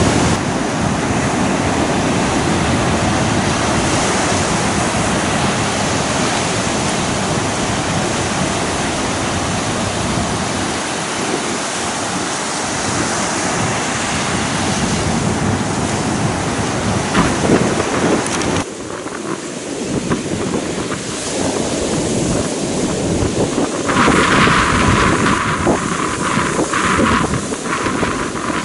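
Ocean surf washing onto a sandy beach, with wind buffeting the microphone. About two-thirds through the sound changes abruptly, and near the end a brighter, hissier rush of surf comes in for a few seconds.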